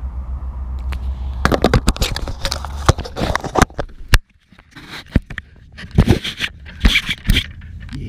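Handling noise on a harness-mounted camera: a rapid, irregular run of scrapes, knocks and rustles as gear is moved against it. A low rumble comes in the first second or so, and there is a brief near-silent gap about four seconds in.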